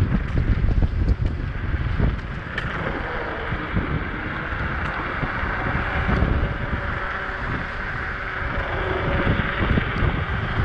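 Wind buffeting the microphone of an Apollo Ghost electric scooter riding at about 20–25 mph, with a steady rush of tyre and road noise underneath. The low rumble is gustier in the first couple of seconds, then evens out.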